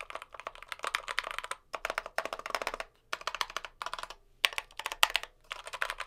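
Typing on a SteelSeries Apex Pro mechanical keyboard with OmniPoint switches, in quick runs of keystrokes with short pauses between them. Its stabilizers are lubed and Band-Aid-modded to tighten and quiet the larger keys.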